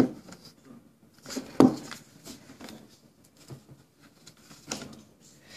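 Handling noise: a sharp click at the start, then a few short rustles and light knocks from the phone and the duct tape wallet being moved about against cloth.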